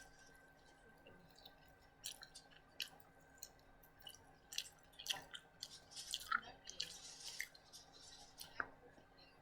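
Close-up chewing and mouth sounds of a person eating: irregular wet clicks and smacks, busiest in the second half.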